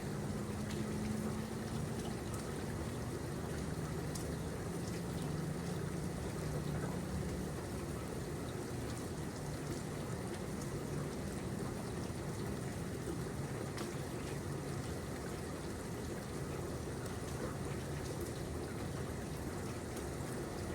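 Steady rain falling, individual drops ticking here and there over an even hiss, with a pouring, trickling quality. A low steady hum sits underneath for the first several seconds and fades out.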